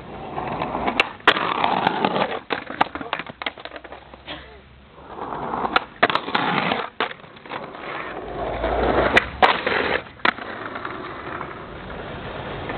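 Skateboard wheels rolling and grinding on concrete in three runs, each broken by sharp clacks of the tail popping and the board landing.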